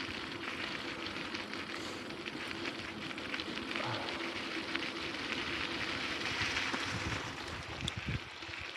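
Bicycle tyres rolling over a gravel path: a steady crackling crunch, with a few low thumps near the end.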